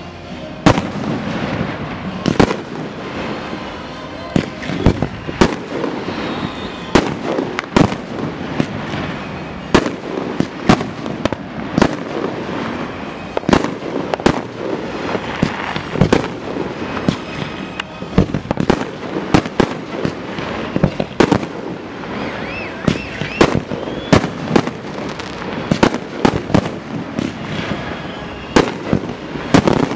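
Aerial fireworks shells bursting in a dense, irregular string of sharp bangs, sometimes several a second.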